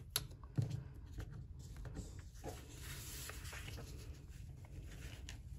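Faint rustling of a paper foundation-piecing template and a cotton fabric strip being handled and lined up on a cutting mat, with a couple of light knocks in the first second.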